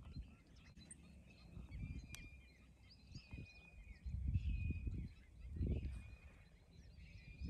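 Birds calling and chirping all through, with several short low rumbles of wind on the microphone.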